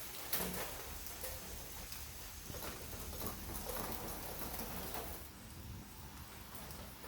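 A few light taps and clicks, the sharpest about a third of a second in, over faint steady background noise.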